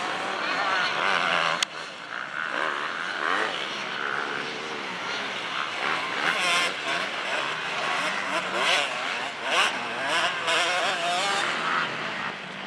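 Several motocross bike engines revving up and down as they race around the track, pitches rising and falling and overlapping, with a sharp click about two seconds in.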